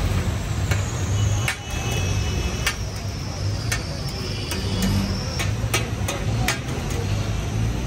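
Steel spatulas clicking and scraping on a large iron tawa, about a dozen irregular sharp strikes, while diced cow liver (kaleji) fries in a steaming heap. A steady low rumble runs underneath.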